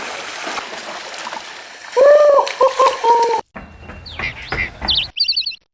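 A steady rushing noise, then a loud pitched call lasting about a second and a half. After an abrupt cut come quick, high chirps of small birds.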